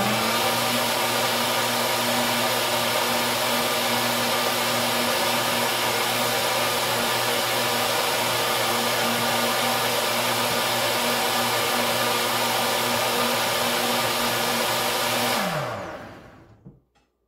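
Nutribullet Combo full-size blender motor spins up and runs steadily at high speed through a green smoothie, with a steady whine. About 15 seconds in it winds down with a falling pitch and stops. This is the final high-speed puree stage of its automatic Extract program, ending the blending cycle.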